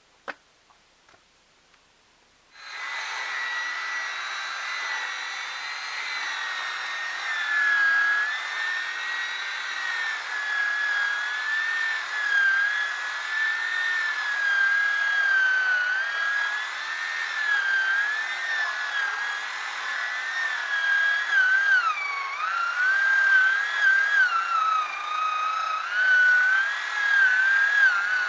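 Chainsaw running at high revs while cutting a large log into firewood rounds. It starts abruptly about two and a half seconds in, after a near-silent moment with a single click. Its high note wavers throughout and dips twice near the end.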